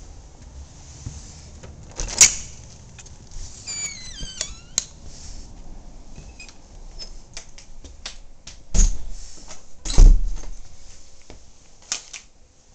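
A run of household knocks and clicks: a sharp knock about two seconds in, a brief burst of short high squeaks about four seconds in, and two heavy thumps near nine and ten seconds in. Lighter ticks in between fit a small dog's claws on a tiled floor.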